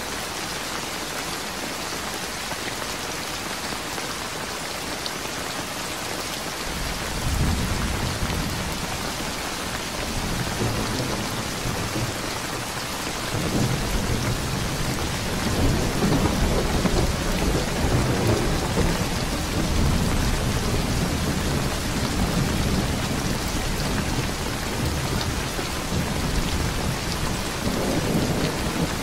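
Steady rain, an even hiss. From about seven seconds in, a low rumble swells up beneath it, strongest around the middle and again near the end.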